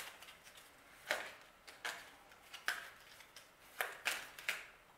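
A deck of tarot cards being shuffled by hand, overhand: about six short swishes at uneven intervals.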